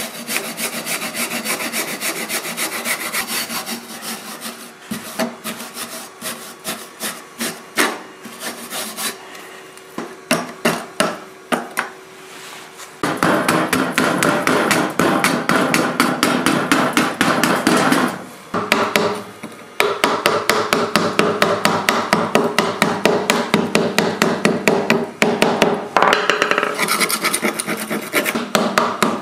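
A flat metal scraper and a wire brush scraping and chipping flaking rust scale off an old steel knife blade. Quick repeated strokes come first, then a quieter stretch of separate strokes, then long continuous scraping from about halfway through.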